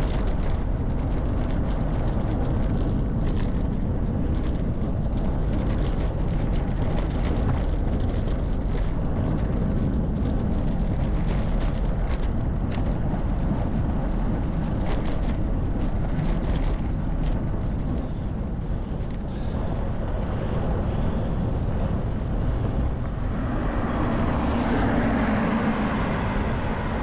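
Steady wind rumble on a handlebar-mounted action camera's microphone over bicycle tyre and road noise, with frequent light clicks and rattles through much of it. A car passes near the end, swelling and fading over a few seconds.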